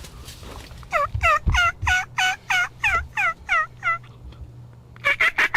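Wild turkey calling: a run of about ten quick notes, each falling in pitch, then a short rapid burst of notes near the end.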